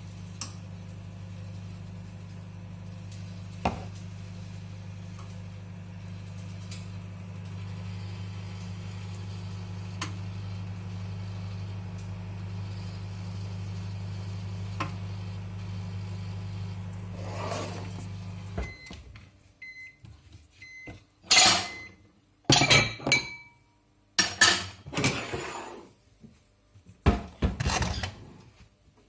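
Microwave oven running with a steady hum that cuts off about two-thirds of the way through, followed by a few short beeps. Then come several loud clattering knocks.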